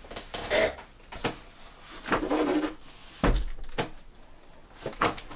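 Knocks and thuds of a large flat board being carried up a narrow staircase, bumping as it goes, with a heavy low thump a little past three seconds in.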